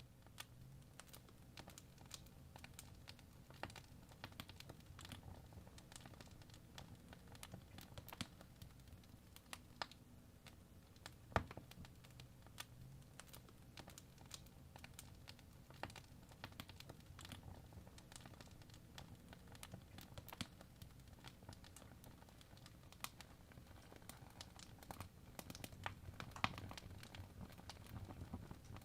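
Logs burning in a fireplace: quiet, irregular crackles and pops over a soft low rumble of the fire, with one sharper pop about eleven seconds in.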